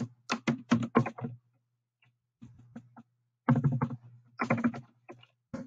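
Computer keyboard keys clicking in two short bursts of typing, one near the start and one from about three and a half seconds in, over a faint low hum.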